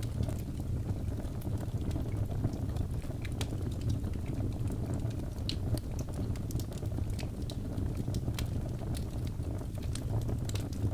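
Wood logs burning in a fireplace: a steady low rumble of flame with scattered sharp crackles and pops from the burning wood.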